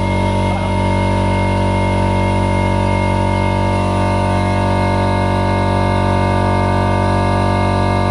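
Piston air compressor running steadily under load, pumping up its 50-litre receiver from empty, with its valves freshly lapped.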